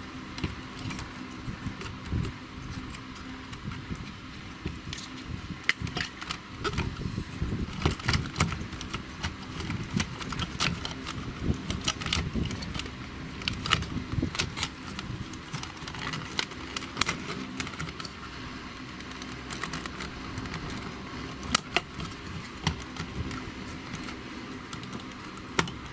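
Small clicks, taps and rattles of hands handling the circuit boards, wiring and plastic case of a Seaward Europa Plus PAT tester during reassembly, over a steady low hum.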